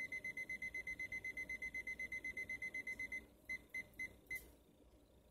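Electronic alarm beeping: a rapid string of high beeps, about nine a second, that breaks off about three seconds in and is followed by four separate beeps before it stops.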